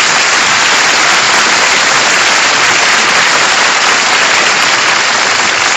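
A large audience applauding loudly and steadily.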